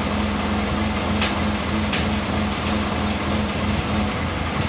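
Truck-mounted crane's engine running steadily with a constant hum while the crane holds a machine on its hook, with two faint clicks about one and two seconds in.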